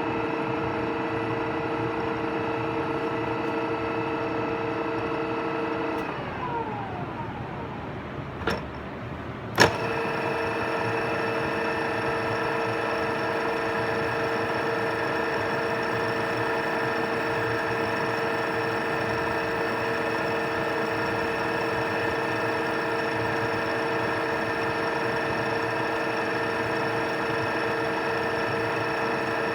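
Oya RE2-1300A radial drill's spindle drive running with a steady mechanical whine. About six seconds in it winds down with falling pitch, a knock and a sharp clack follow a few seconds later, and the drive then runs steadily again.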